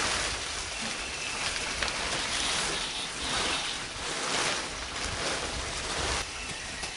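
Black plastic pond liner rustling and crinkling as it is pulled and tucked into a wooden float-bed frame, an uneven hiss that swells and fades.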